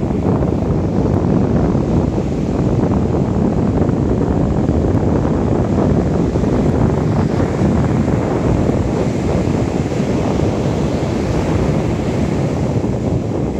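Ocean surf breaking and washing up a sandy beach, mixed with wind buffeting the microphone; a loud, steady low rush with no distinct single events.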